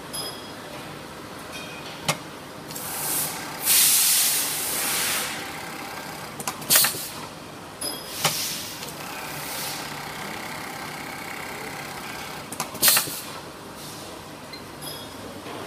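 TOPEAGLE TBH-580 direct-drive eyelet buttonhole machine working through its cycles: a steady mechanical hum broken by sharp clicks and several loud hisses, the longest lasting over a second a few seconds in.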